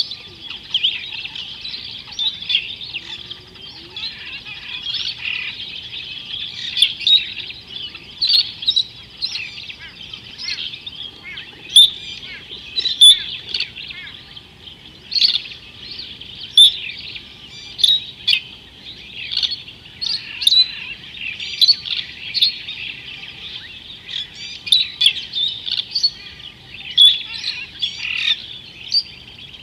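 A chorus of birds chirping and calling, with many short, sharp notes overlapping continuously.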